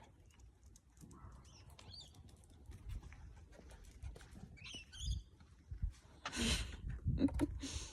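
A bird chirps briefly about halfway through, over faint background rumble. Two short rushes of noise come near the end.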